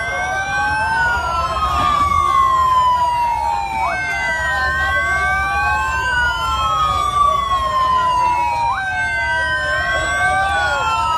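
Several police sirens wailing at once. One jumps up in pitch, holds briefly, then slides slowly down, repeating about every four to five seconds, while others sweep slowly up and down under and over it.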